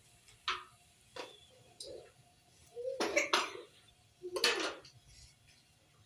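A few short coughs, the two loudest near the middle, with light scraping and clinking of a metal spoon in a roasting pan of stuffing between them.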